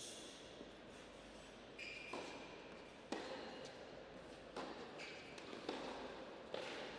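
Scattered sharp knocks of tennis balls and a couple of short shoe squeaks echoing in an indoor tennis hall, the loudest knock about three seconds in.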